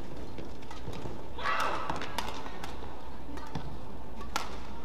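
Badminton rally: sharp racket strikes on the shuttlecock about once a second, with taps of footwork on the court. A brief louder noisy burst comes about a second and a half in.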